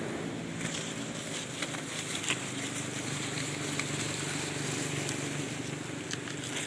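A colony of giant honey bees (lebah odeng) buzzing around their exposed comb, a steady drone, with leaves brushing and a few light clicks and knocks.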